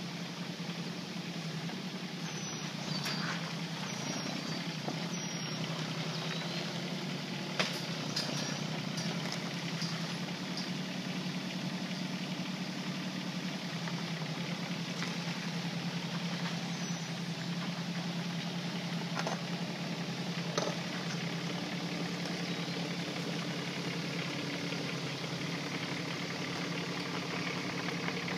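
Kubota K008-3 micro excavator's small three-cylinder diesel engine running steadily as the machine tracks along. Two sharp knocks stand out, one early and one about two-thirds of the way through.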